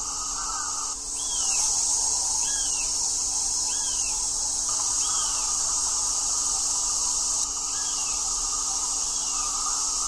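A bird calling over and over, a short high arched note about once a second, over a steady high hiss.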